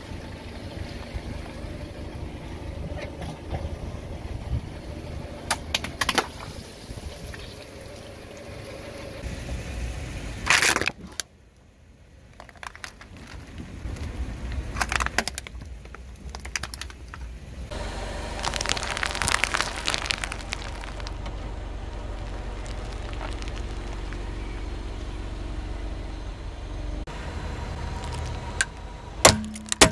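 A car tyre slowly rolling over things on pavement, over a steady low car rumble. First it squashes long water balloons, with one loud burst about ten seconds in. Then a plastic toy tractor crackles and snaps under the wheel, and near the end sharp cracks come as small jelly-filled containers start to break.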